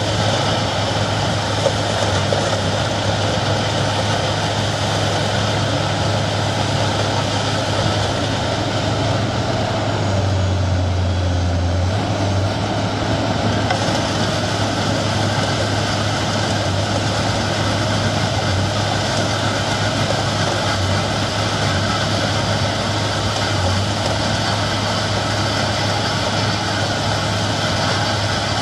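Giant V452T HD compact wheel loader's diesel engine running steadily under load, driving a hydraulic Tokvam front-mounted snow blower that is cutting into a snow pile and throwing snow. There is a steady low drone with a dense rushing noise over it. About ten seconds in, the drone deepens briefly and the higher noise thins for a few seconds.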